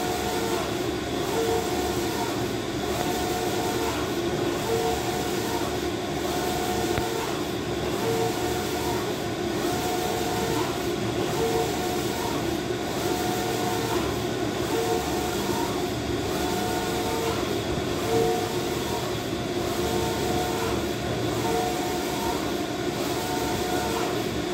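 Wide-format inkjet flex banner printer running, its print-head carriage shuttling back and forth across the media. A steady mechanical running noise carries a whine that comes and goes with each pass of the carriage.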